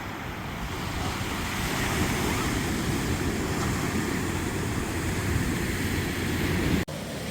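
Ocean surf breaking and washing up the beach as a steady rushing rumble, with wind buffeting the microphone. A brief dropout near the end.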